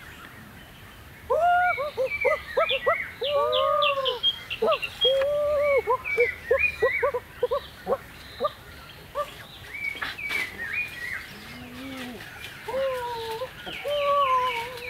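A bird squawking in quick runs of short, arching calls, loudest and fastest in the first few seconds, then again in shorter runs near the end.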